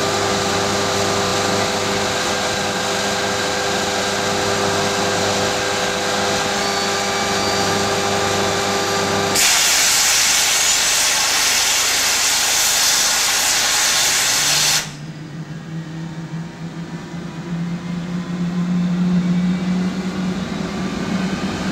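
Engine start on an English Electric Lightning: a steady hum from the ground power unit, then about nine seconds in a loud hiss from the Avpin starter lasting about five seconds and cutting off suddenly, followed by the Rolls-Royce Avon jet engine winding up with a rising low hum.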